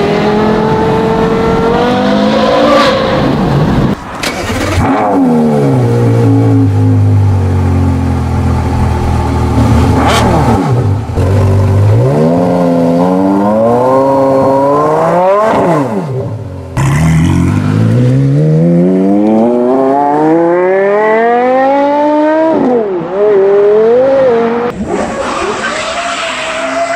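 Porsche Carrera GT's 5.7-litre V10 running through aftermarket exhausts, mostly a Tubi Style system, revving and accelerating hard. The pitch climbs steeply, drops back at each shift and climbs again. The sound cuts off sharply and starts again about 4 and 17 seconds in.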